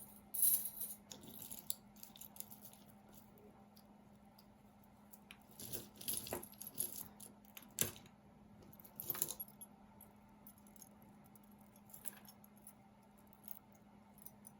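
Metal costume jewelry clinking and jangling in short scattered bursts as pieces are picked through and handled, over a faint steady hum.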